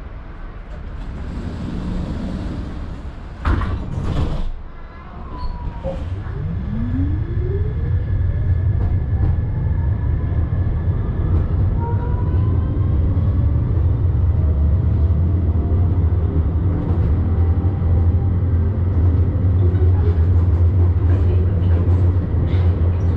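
Tram pulling away: a loud clatter about four seconds in, then the electric traction motors whine, rising steadily in pitch as it accelerates, over a low running rumble that grows louder and then holds steady.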